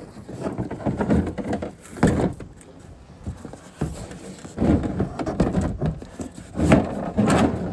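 Irregular knocks, rustling and shuffling of someone moving about and handling things, with no engine running.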